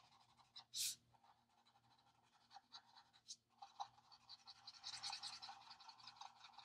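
Faint scratching of an alcohol marker's tip stroked over coloring-book paper in short strokes, with a denser run of strokes about five seconds in. A brief louder hiss just before a second in.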